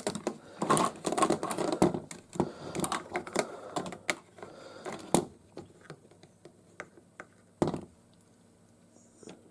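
Hard plastic clicks and taps of a Transformers figure being handled and its gun fitted into place on top, rapid and irregular for the first few seconds, then a couple of single knocks.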